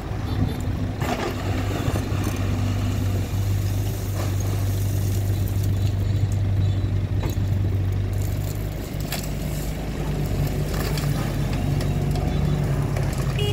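Doosan mini excavator at work loading sand into a dump truck: its diesel engine hums steadily, changing pitch about two-thirds of the way through as the load changes. Now and then the bucket scrapes and the sand clatters into the truck bed.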